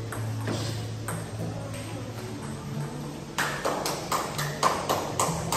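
Table tennis ball clicking off paddles and the table in a rally: sharp clicks about three a second, starting a little past halfway, with fainter ticks before.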